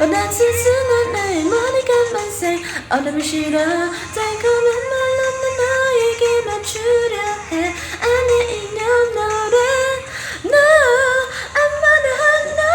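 A woman singing a K-pop song cover in a high voice over a backing track, with wavering vibrato on the held notes.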